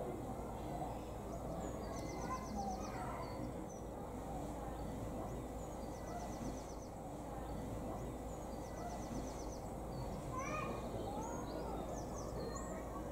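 Bird chirps over steady background noise, with a short rapid high trill that comes three times, a few seconds apart.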